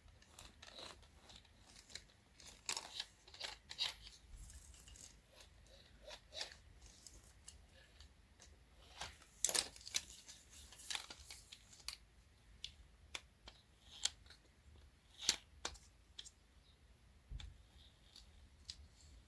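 Faint, irregular clicks and small knocks of plastic and metal parts being handled and pried apart as a mini hi-fi's CD mechanism is taken apart by hand, a few sharper clicks standing out.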